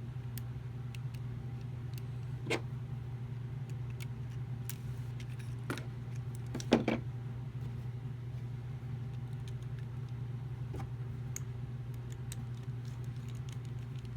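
A few small clicks and taps of PS4 controller plastic parts and circuit board being handled and fitted back together, the loudest about seven seconds in, over a steady low hum.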